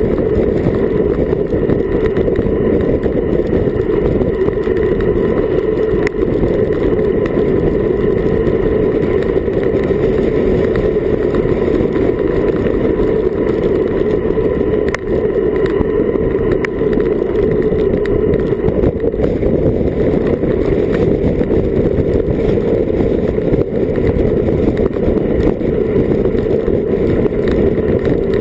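Wind rushing over a Garmin VIRB action camera's microphone on a bicycle descending at about 40 km/h. It is a steady, loud, low wind noise with no breaks.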